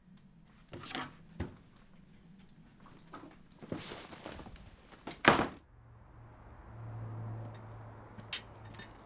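A few knocks and rustles, then a door slammed shut hard about five seconds in, the loudest sound here. After the slam comes a steady low hum of street ambience.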